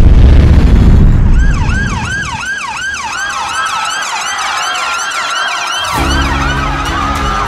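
A loud, deep explosion boom that rumbles away over the first two seconds. Then ambulance sirens: one yelps in fast rising-and-falling sweeps that slow to a wail, another holds a steadier tone. About six seconds in, background music with low sustained notes comes in under the sirens.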